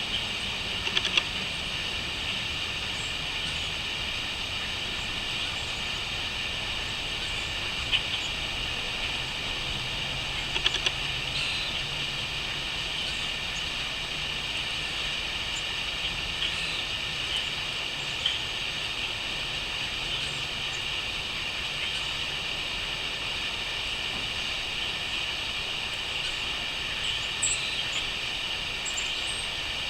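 Crickets chirping in a steady, unbroken chorus, with a few short bird chirps rising above it now and then.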